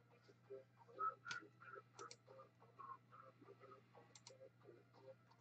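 Faint, irregular tapping and clicking of a computer keyboard and mouse, with a sharper click about a second in, over a low steady hum.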